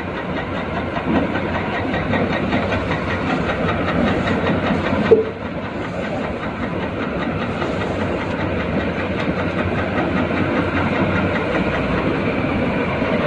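Steady mechanical engine-like running noise, with one sharp knock about five seconds in.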